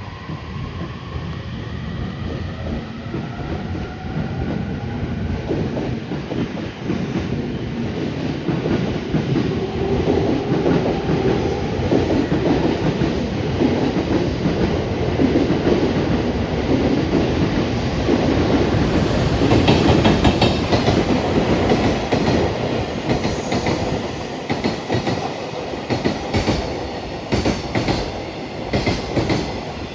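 A JR Freight EF210 electric locomotive and its loaded container flatcars rolling past: a continuous rumble of steel wheels on rail, with a whine that rises in pitch over the first few seconds. From about two-thirds of the way through, the wagon wheels clatter over rail joints in a clear, rapid clickety-clack.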